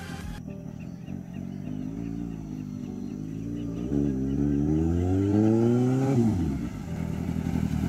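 Suzuki GSR750's inline-four engine accelerating: the engine note climbs steadily, then drops sharply about six seconds in as the throttle is closed.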